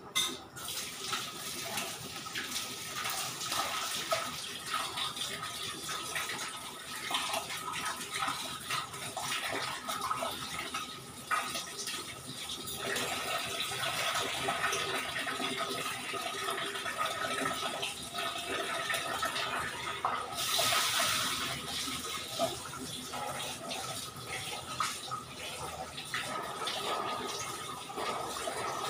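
Water running from a tap and splashing into a sink, with small clinks and knocks throughout. It starts suddenly, and the flow grows stronger for a moment about twenty seconds in.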